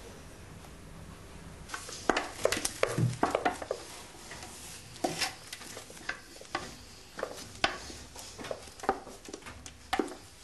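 Kitchen clatter: irregular clinks and knocks of utensils against bowls and pans, starting about two seconds in.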